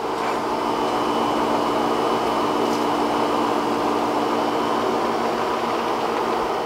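Steady, fan-like whooshing of a running machine that moves air, with a faint low hum in it.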